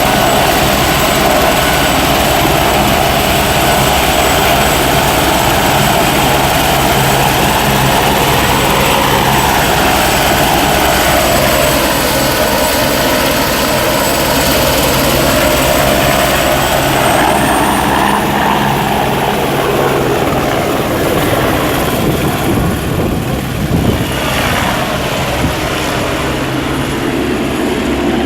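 SAMU emergency medical helicopter running loud and close, a steady rotor and turbine sound. The pitch of its noise sweeps slowly up and down, and the hiss thins out in the last few seconds.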